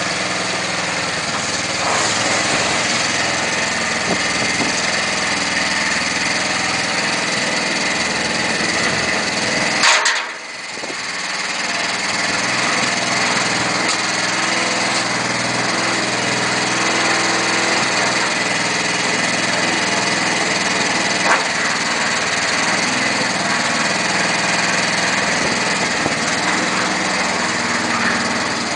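Small petrol engine of a Dori Hercule power barrow running steadily as the barrow works. About ten seconds in there is a sharp knock, after which the engine sound drops away briefly and then recovers.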